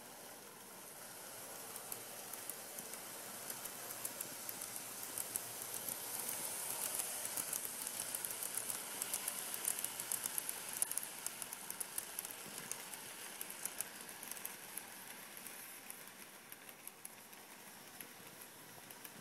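A Kato N-scale Amtrak model train running past on the layout track: a light rattle of small wheels with rapid clicks. It grows louder as the train nears, is loudest about halfway through, then fades as it moves away.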